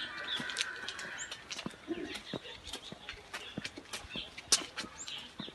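Footsteps on a brick-paved path, irregular hard clicks of shoes stepping briskly uphill, with a few short high bird chirps.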